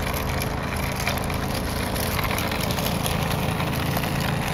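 Kick scooter's small wheels rolling over an asphalt path: a steady gritty rumble with many small rattles and clicks.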